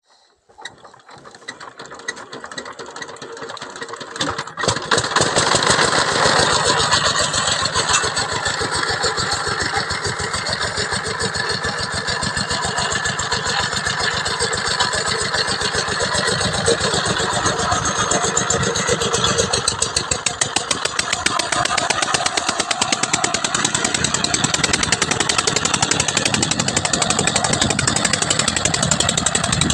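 Horizontal single-cylinder diesel engine of a công nông farm cart being cranked, catching about five seconds in, then running with rapid, even firing while the cart moves under a full load.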